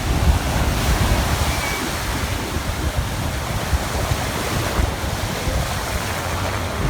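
Sea waves breaking on the shore in strong wind, a steady wash of surf, with wind gusting hard on the microphone and making a low buffeting rumble.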